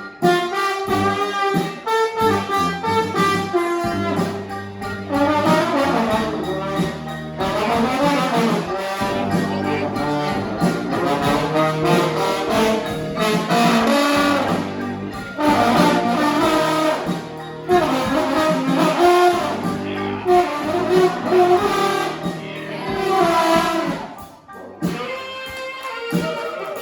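A brass band playing live: several horns together over a low bass line, with a brief break near the end.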